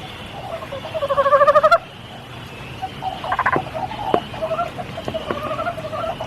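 Frogs calling during spring rain: short, repeated rising croaks, with one loud pulsed trill about a second in that cuts off suddenly. Steady rain hiss runs underneath, with a few sharp drips.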